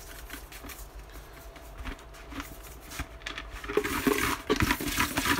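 A plastic pumpkin pail being handled and shaken, the name slips inside rustling and clicking. It is faint at first and grows busier and louder from about two-thirds of the way in.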